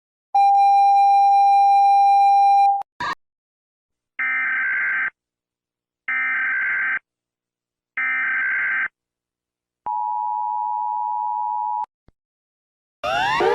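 Emergency Alert System–style alarm sequence: a steady buzzing tone for about two and a half seconds, a brief chirp, three evenly spaced one-second bursts of digital data screech, then a two-tone attention signal for about two seconds. Just before the end a different loud alarm with repeating rising sweeps begins.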